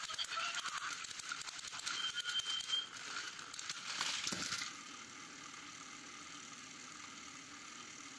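Small electric motors and plastic gears of battery-powered toy trains rattling and whirring as two engines push against each other on plastic track. About four and a half seconds in, one engine tumbles off with a soft thump and the rattle drops away to a quieter, steady motor hum.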